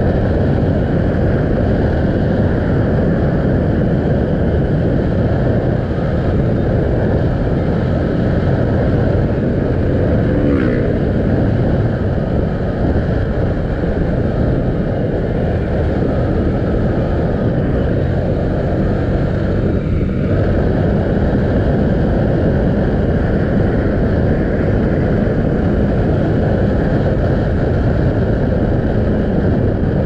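Bajaj Pulsar 200NS single-cylinder motorcycle engine running steadily at cruising speed, mixed with steady wind rush over the microphone.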